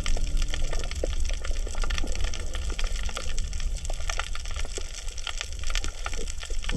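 Underwater coral-reef crackle: a dense, irregular patter of sharp clicks over a low rumble of moving water. The uploader takes this 'michi-michi' crackle for the sound of coral breathing, perhaps mixed with coral breaking as fish feed on it.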